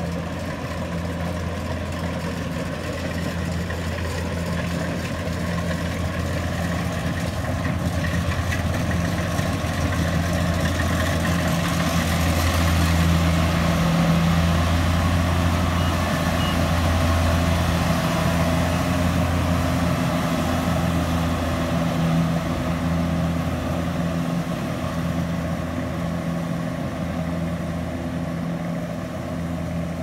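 Rice combine harvester on tracks, its diesel engine running steadily as it cuts through the paddy. The hum grows louder as it comes close, about halfway through, then eases as the machine moves away.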